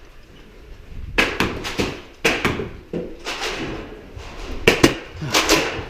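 Nerf Rival blasters firing foam balls: a string of sharp knocks, several coming in quick pairs.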